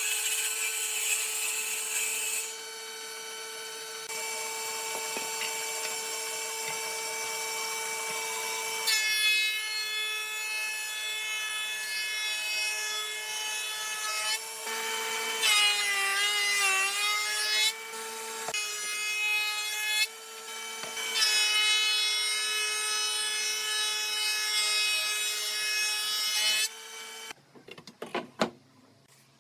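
An electric saw runs with a steady high whine while cutting wood. Its pitch sags briefly about halfway through, as if under load, then recovers. Near the end it stops, leaving a few light knocks.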